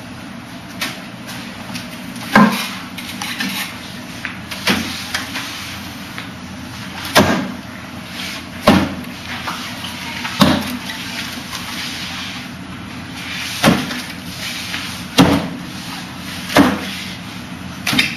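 Wing Chun wooden dummy struck by hands and forearms against its wooden arms and trunk: a sharp wooden knock every one and a half to three seconds, nine in all, with lighter taps in between.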